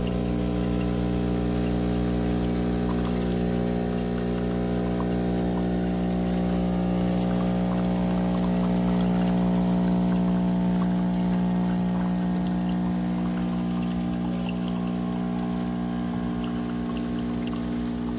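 Espresso machine's water pump running with a steady hum while water pours out. The machine pumps water but never heats it, because its heating element does not work.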